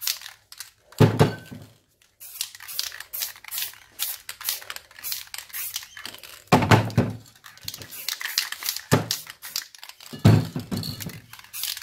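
Aerosol spray paint cans hissing in many short bursts as paint is sprayed around a round stencil. Four heavy thunks stand out, a second in, about two-thirds of the way through and twice near the end.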